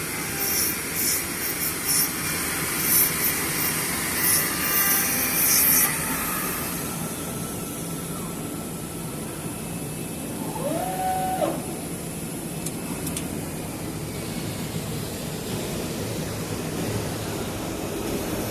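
An 800 W router spindle on a flatbed cutting plotter running while milling PVC sheet. For about the first six seconds the bit cuts in repeated loud, hissing bursts. After that the spindle runs on steadily and more quietly, with a brief rising whine near the middle.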